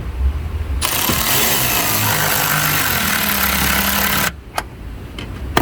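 Cordless power tool running to tighten the tail lamp's 10 mm mounting nuts: one run of about three and a half seconds starting about a second in, a brief blip after it stops, then starting again at the end.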